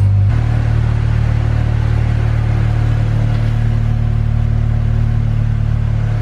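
Acura RSX's 2.0-litre four-cylinder engine idling steadily through a cheap aftermarket 'ricer' muffler, giving a deep, even exhaust rumble.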